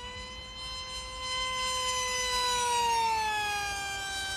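Multiplex FunJet RC jet's electric motor and pusher propeller whining at high speed on a fly-by. The whine swells to its loudest about three seconds in, then drops in pitch as the plane passes.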